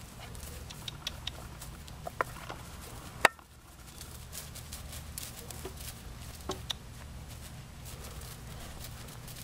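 Tennessee Walker cross pony walking on grass under a rider: soft, uneven hoof falls and scattered light clicks, over a steady low rumble. One sharp knock, the loudest sound, comes about three seconds in.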